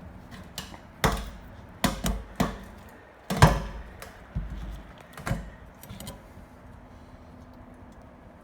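A series of separate metal clinks and knocks from hand tools working the fasteners of a truck's in-tank fuel pump, the loudest about three and a half seconds in, then quieter.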